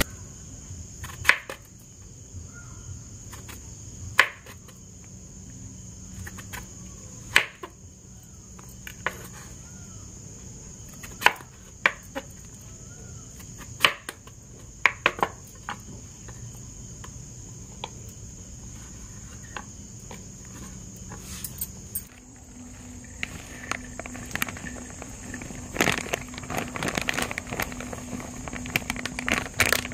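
Kitchen knife slicing a raw potato into rounds on a wooden cutting board: a sharp knock each time the blade meets the board, irregularly every one to three seconds, over a steady high chirring of crickets. About 22 seconds in this gives way to a soft grainy rustle of flour poured into a clay pot, with a low steady hum.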